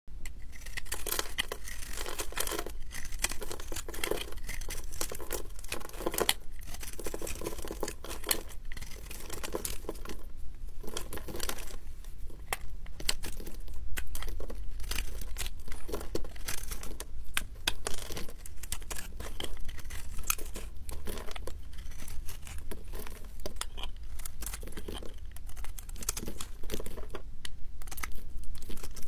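Utility-knife blade shaving and carving a ball of recycled soap pressed from soap chunks: a dense, irregular run of crisp cracks and scrapes as flakes break off the soap.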